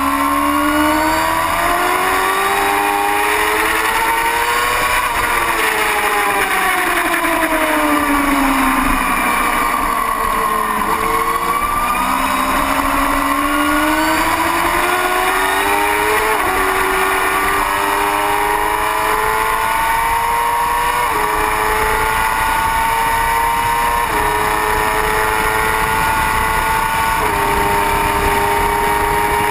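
Motorcycle engine heard from an onboard camera, running at speed under steady wind rush. The revs climb, fall away smoothly, climb again, then go up through four upshifts in the second half, each one a sudden drop in pitch.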